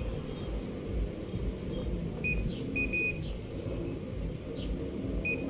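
Short high-pitched electronic beeps from a multimeter probing the TV panel's CKB clock-signal lines, a brief one at the start and three in quick succession a little past two seconds in, over a low steady hum.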